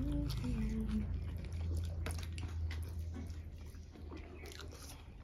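Close-up eating sounds: a short hummed "mm" gliding down in the first second, then soft chewing and lip-smacking clicks of mouthfuls of rice and fish, with a low steady hum underneath through the middle.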